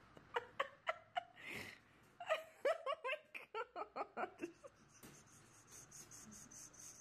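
A person laughing in a quick run of short giggles for about four seconds. This is followed by a fast, even, high-pitched chirping near the end.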